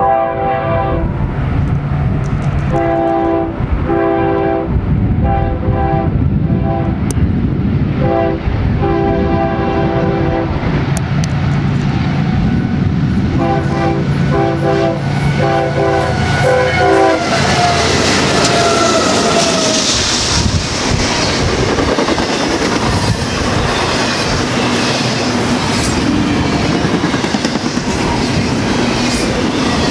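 BNSF locomotive horn sounding a long run of short blasts as the train approaches. Its pitch drops as the locomotive passes, and the passing cars then rumble and clack over the rails.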